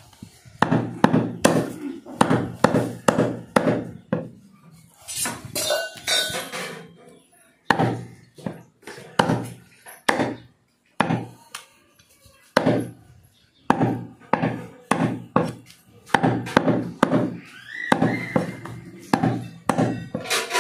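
Repeated heavy chops of a butcher's cleaver through goat meat and bone, about one or two strokes a second with short pauses, each hit a dull thunk.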